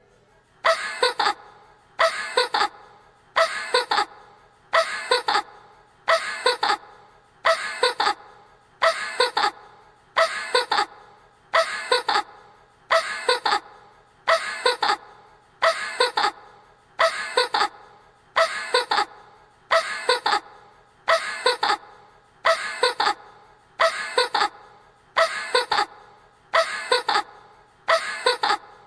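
A young girl's short cartoon laugh sound effect, the same clip looped over and over, about once a second.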